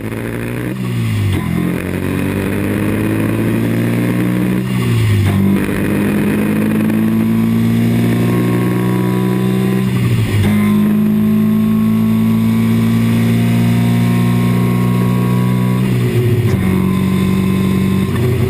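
Turbocharged race car engine at full throttle, accelerating hard through the gears. The engine note climbs in each gear and drops sharply at four upshifts.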